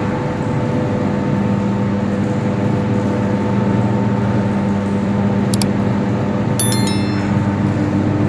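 Poultry feed mill machinery running with a steady mechanical hum. A few short metallic clinks ring out about five and a half and seven seconds in.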